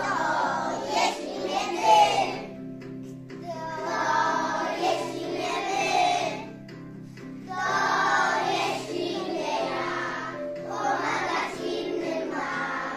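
A group of young children singing a song together over an instrumental accompaniment. They sing in phrases two to three seconds long, with short breaks between them.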